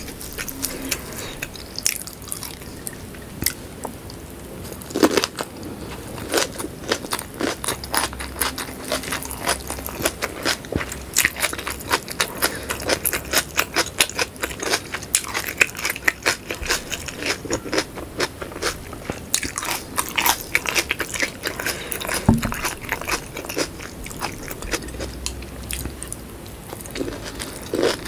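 A person chewing whole shallots in sambal, with a dense, irregular run of crunches and clicks.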